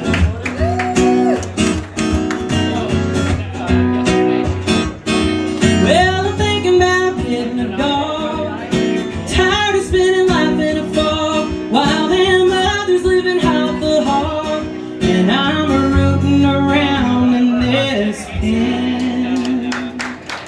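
Country song played on acoustic guitar, with a woman singing long, wavering held notes over it in the closing bars.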